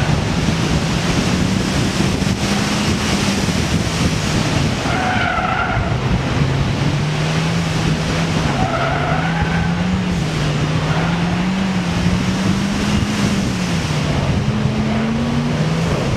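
Street car's engine under varying throttle through an autocross run, its pitch rising and falling, over heavy wind noise. Tires squeal briefly twice, about five seconds in and again about nine seconds in.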